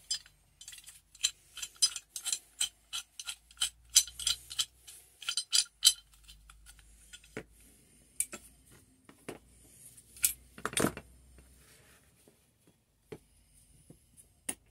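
Steel pipe wrench being taken apart by hand: a quick run of metal clicks and clinks as the hook jaw and adjusting nut are worked loose, then sparser knocks and taps, with one louder clunk about two-thirds through.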